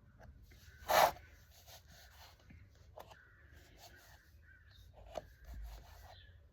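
Small handling noises from a cut-open squishy toy and its slimy goo being worked by hand: soft clicks and rustles, with one loud, sharp sound about a second in.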